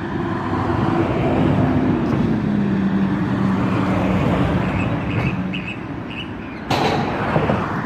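An engine running steadily, its hum dropping in pitch about two seconds in and holding there. A short sudden rush of noise comes near the end.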